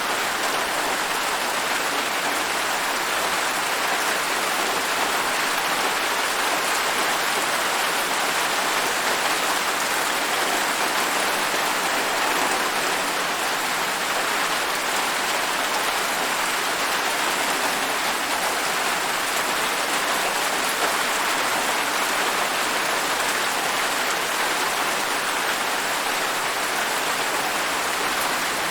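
Steady rain falling, an even, unbroken hiss at a constant level.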